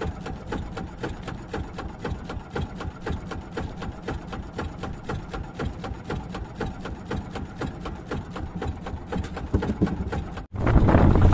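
Small boat engine running at low speed, a fast, even putter. About ten seconds in it cuts off suddenly, and a louder engine sound with wind on the microphone follows.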